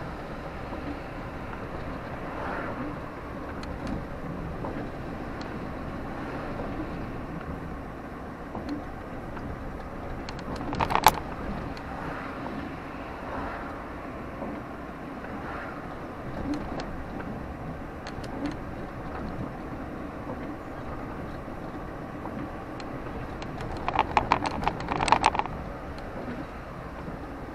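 Steady low rumble of vehicle or traffic noise, broken by two short runs of rapid sharp clicking or rattling: one about eleven seconds in and a longer one near the end.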